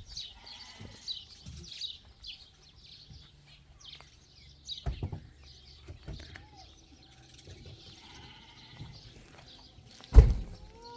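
Sheep bleating now and then over continual high-pitched bird chirping, with one loud thump near the end.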